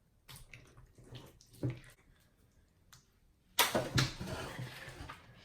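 Wet squelching and sticky clicks of freshly activated glue-and-shampoo slime being stirred and squeezed, with a louder squelch about three and a half seconds in.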